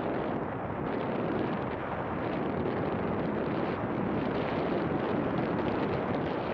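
Steady wind rushing and buffeting over the camera microphone in gliding flight, with no engine running.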